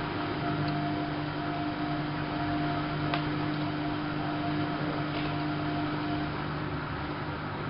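Whirlpool AWO 5346 washing machine running, with a steady motor hum that dies away about six seconds in and a single click about three seconds in.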